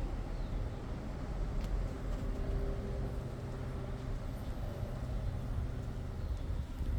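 Steady low background rumble, with a faint steady hum rising briefly in the middle.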